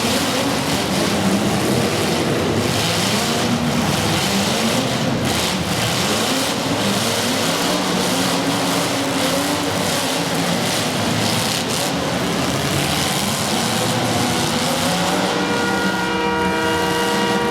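Racing engines running hard, their pitch rising and falling over and over as they accelerate and ease off. Near the end a horn starts to sound with a steady chord.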